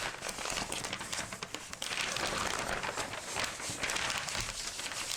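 Gift wrapping paper crinkling and rustling as a present is unwrapped by hand, a continuous crackly rustle.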